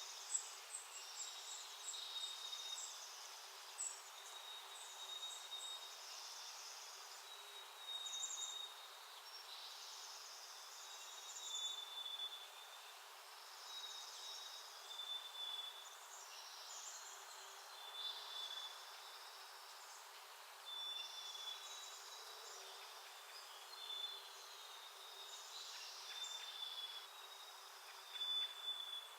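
Small backyard songbirds calling. A short, high note repeats every second or two, mixed with spells of higher, buzzy chatter.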